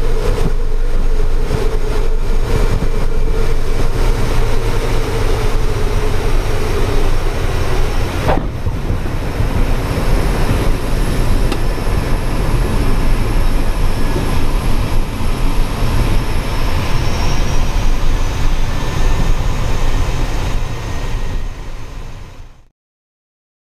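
Pilatus PC-6 Porter's Pratt & Whitney PT6 turboprop, heard from inside the cockpit with wind rush, running through the final approach and landing. A steady propeller tone fades away about seven seconds in, a sharp knock comes about eight seconds in at touchdown, and the sound fades out near the end.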